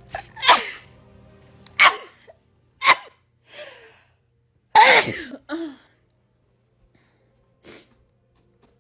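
A person sneezing over and over in a fit: four loud sneezes in about five seconds, the one near five seconds in the loudest, with a few smaller bursts after.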